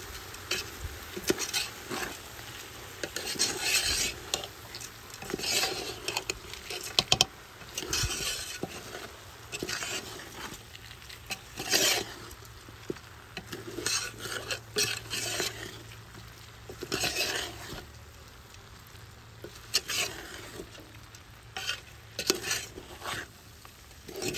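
Raw parboiled brown rice being stirred into frying meat and seasonings in a pot: irregular scraping strokes of spoon and grains against the pot every second or two, with occasional clinks of the spoon and a faint sizzle underneath.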